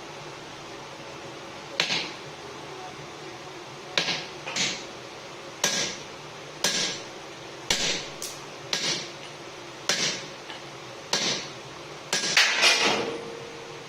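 Hand forging: a hammer striking steel on an anvil, sharp ringing blows about once a second, many followed by a lighter rebound tap, with a quick flurry of strikes near the end.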